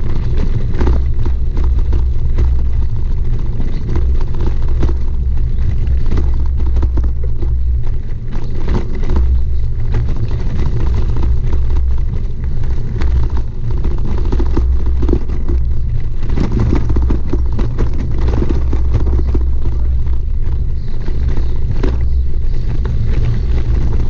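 Wind buffeting a bicycle-mounted camera's microphone while riding on a gravel road: a loud, steady low rumble with constant crackling and clicking from the tyres rolling over gravel and the bike shaking.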